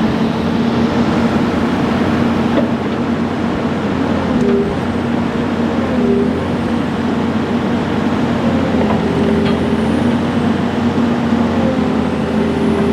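Komatsu excavator's diesel engine running steadily under hydraulic load, with a higher tone that comes and goes several times as the levers are worked.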